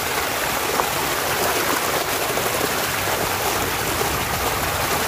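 Steady rush of water from a small waterfall, splashing over a muddy toy truck held in the flow by hand to wash off the mud.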